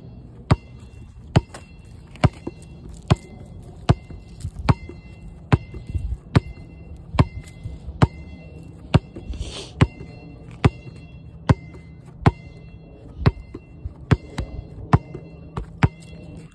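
A basketball being dribbled on hard pavement, a steady bounce a little more than once a second, each bounce with a short ringing ping. A steady low hum runs underneath.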